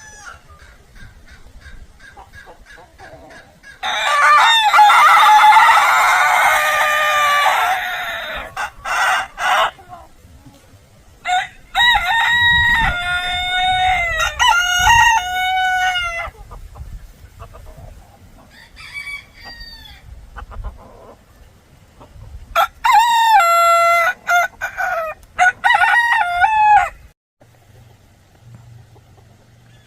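Roosters crowing, in three loud bouts of drawn-out calls. The first bout has several crows overlapping; the later ones are clearer single crows with a rise and fall in pitch.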